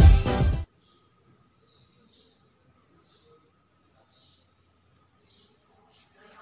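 A cricket trilling steadily, faint and high-pitched, after intro music cuts off in the first second.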